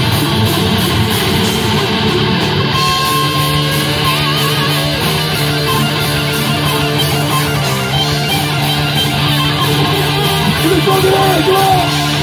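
Live metal band playing an instrumental passage: electric guitar, bass guitar and drum kit, loud and continuous.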